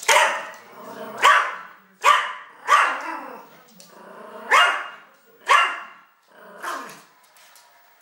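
Dog barking seven times in an uneven run, each bark short and sharp, the last one weaker.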